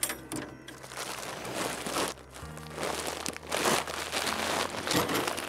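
Heavy plastic feed sacks crinkling and rustling as they are lifted and carried, in several swells of handling noise.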